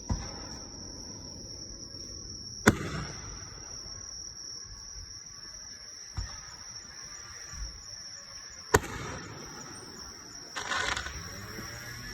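Fireworks shells bursting: two sharp bangs about six seconds apart, with softer thuds between them and a brief crackling hiss near the end.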